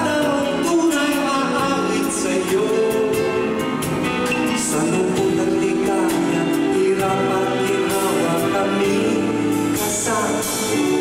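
Live music: a man singing into a microphone over a band, with sustained sung notes and a steady beat of cymbal taps.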